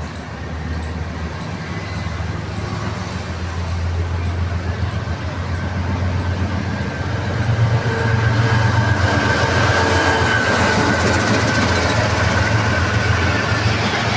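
A GEU20-class diesel-electric locomotive approaching with its engine running, growing louder until it passes about eight seconds in. Passenger coaches then roll past with a steady rumble and clatter of wheels on the rails, and a thin high whine runs through it.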